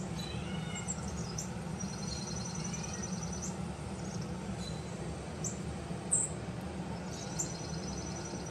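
Small birds chirping, with short high sharp calls and a rapid high trill twice, over a steady low hum.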